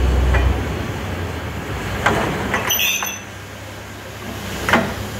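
Borewell drilling rig machinery: a deep engine drone that drops away about half a second in, then several sharp metallic knocks and a brief high squeal.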